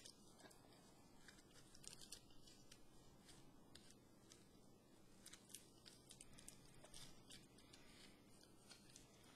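Faint, scattered crinkling of aluminium foil as a small foil-wrapped packet is handled and unwrapped by hand.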